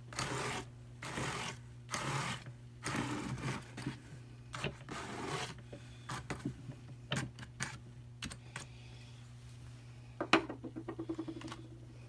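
Hand-cranked drum carder with fine carding cloth worked with wool and sparkle fiber: a series of short scratchy, rasping strokes of fiber against the wire teeth, then scattered clicks, and near the end a sharp click followed by a quick run of light ticks.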